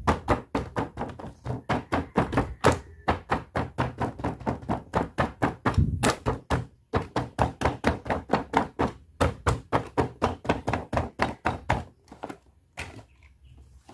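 Fingers tapping quickly and lightly on the hard clear plastic packaging of a boxed doll-and-accessory set, about five taps a second. The taps break off briefly about seven seconds in and die away near the end.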